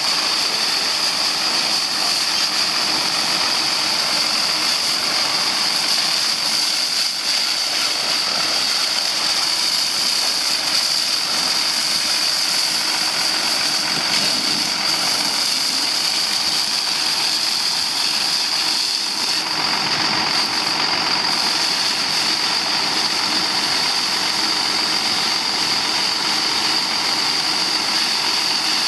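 A hose jet spraying hard against a John Deere tractor's tyres and bodywork: a steady hissing spray with a steady high-pitched whine under it.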